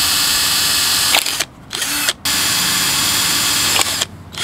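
Electric drill running in bursts while drilling holes for a tweeter's mounting screws and wire. It runs for over a second, stops, gives a short weak burst, runs again for nearly two seconds, then stops, with one brief burst near the end.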